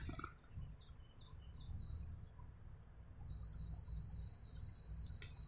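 Faint low background rumble of room noise, with a bird chirping: a few scattered high notes, then a rapid run of short high chirps, about five a second, in the second half.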